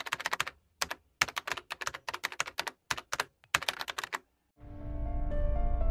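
Rapid computer-keyboard typing, quick sharp clicks in irregular bunches, stopping about four seconds in; just after, music with held, steady notes and a low bass begins.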